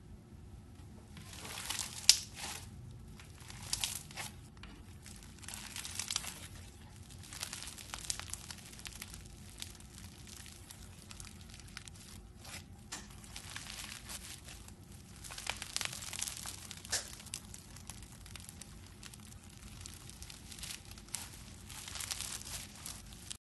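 Foam-bead slime being pressed, stretched and squeezed by hand: irregular crackling of the beads in the sticky slime, with sharper crackles now and then, the loudest about two seconds in.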